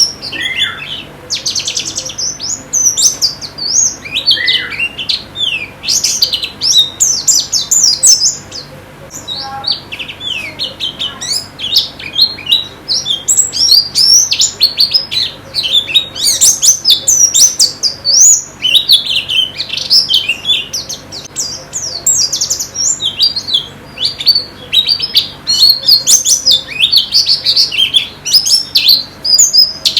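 White-eyes (pleci) singing, a fast, high-pitched twittering song that runs almost without a break, thinning briefly about nine seconds in.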